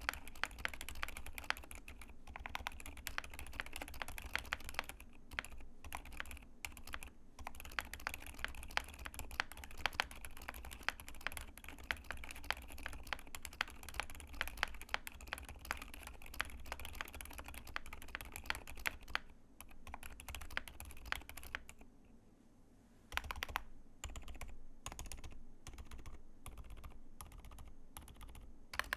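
Fast, continuous typing on a YMD96XS mechanical keyboard with lubed Outemu Silent Jade Yellow silent tactile switches, a POM plate and a walnut case, giving dampened keystrokes. The typing pauses briefly about three quarters of the way through, then resumes at a slower pace.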